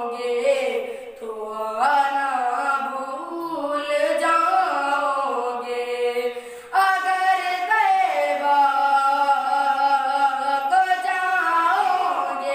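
A boy singing an Urdu nazm, a devotional poem, into a microphone in long held notes that bend in pitch. The line breaks off briefly about a second in and again a little before seven seconds in, then picks up again.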